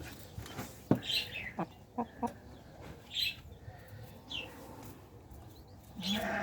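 Domestic chickens: chicks peeping in short high cheeps that fall in pitch, and a hen giving short low clucks. Near the end a louder, longer call begins.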